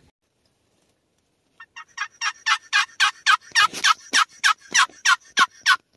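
A long run of turkey yelps, about four to five short notes a second, growing louder for about four seconds, starting about a second and a half in.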